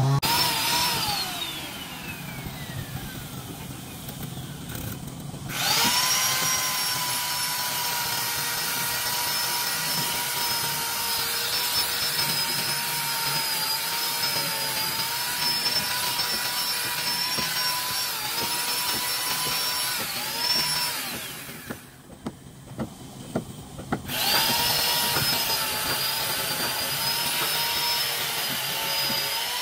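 A handheld electric power tool working wood, its motor running with a high whine. It winds down with falling pitch early on, then starts again and runs steadily for about fifteen seconds, the pitch dipping briefly now and then under load. It cuts out for about two seconds, with a few knocks, and then starts up again.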